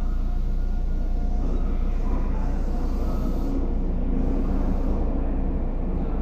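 Meitetsu 1000 series "Panorama Super" electric express train pulling out of an underground platform. Its motors and wheels give a steady low rumble that swells as the cars roll past and then trails off down the track.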